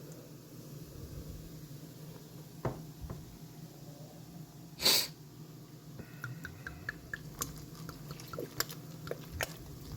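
Beer poured from a bottle into a slow cooker. There is a short, sharp hiss about halfway through, then a run of quick, small glugging pops and light clinks toward the end.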